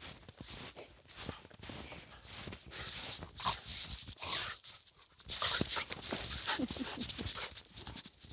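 A puppy digging and scrabbling in snow and tugging and chewing a branch: crunching, scraping strokes of snow and wood, with a few short dog whimpers.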